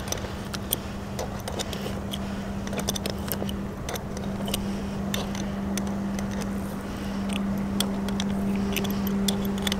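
Small metallic clicks and scrapes as a shackle pin is screwed tight with a metal tool, over a steady engine hum.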